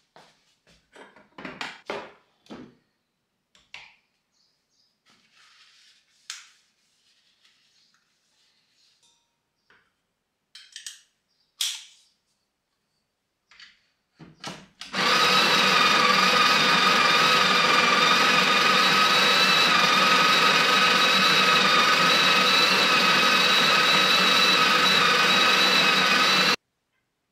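Scattered clicks and knocks of things being handled. Then a small electric motor appliance starts, runs at a steady whine for about twelve seconds and cuts off sharply.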